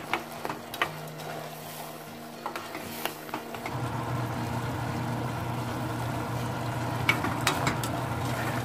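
Peas simmering in sauce in a metal pot, stirred with a plastic spatula that clicks and scrapes against the pot. A steady low hum runs underneath and gets louder, along with a sizzling hiss, about four seconds in.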